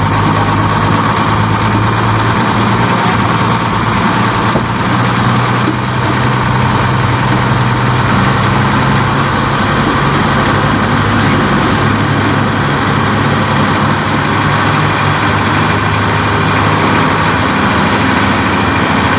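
Truck engine running with a steady low drone, heard from inside the cab as the truck rolls slowly along.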